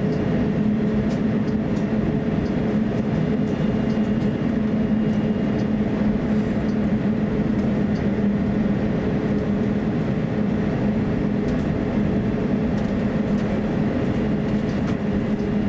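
Cabin noise inside an Airbus A350-900 taxiing on the ground: its Rolls-Royce Trent XWB engines turning at low taxi power, heard through the cabin as a steady rumble with an even low drone.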